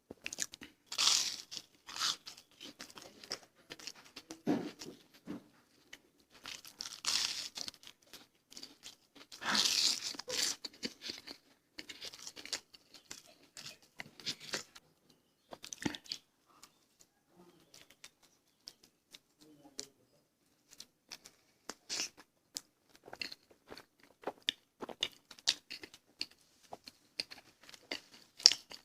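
Close-up eating sounds: a person chewing and crunching food, with wet mouth clicks and a few louder crunches in the first ten seconds, then a sparser stretch before the chewing picks up again.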